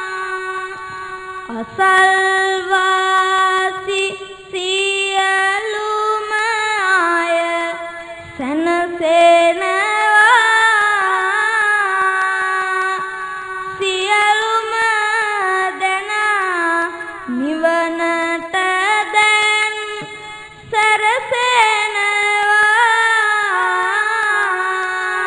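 A young Buddhist monk's voice chanting Sinhala kavi bana, verses of a sermon sung to a slow melody with long, ornamented, wavering notes. Brief pauses fall between the sung lines.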